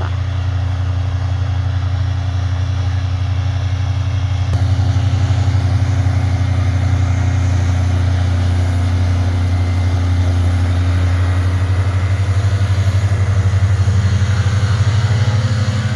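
Tractor engine running steadily while a mower arm mounted on the tractor cuts grass and weeds; the sound gets a little louder about four and a half seconds in.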